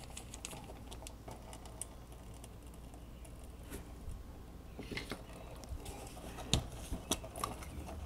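Faint, scattered light clicks and taps from handling a removed golf-cart carburetor and its float bowl, with a few sharper ticks in the second half.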